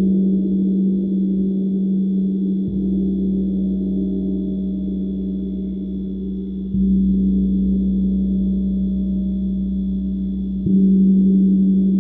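Gong struck softly with a mallet three times, about four seconds apart, each stroke swelling a deep, steady ringing hum that sustains between strokes.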